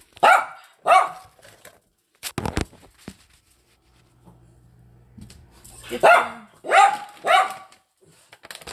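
Small dog barking: two sharp barks right at the start, then after a pause of a few seconds three more in quick succession. A couple of sharp knocks come about two seconds in.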